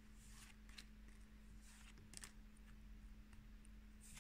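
Faint swishes and light clicks of Pokémon trading cards being slid one by one off the front of a stack, several times at an uneven pace.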